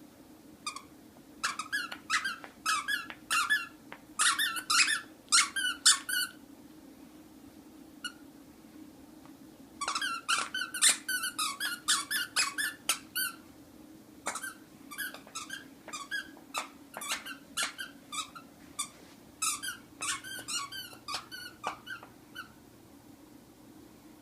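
Squeaky stuffed lion toy squeaking over and over as a Great Pyrenees puppy plays with it. The squeaks come in quick runs with short pauses, over a faint steady low hum.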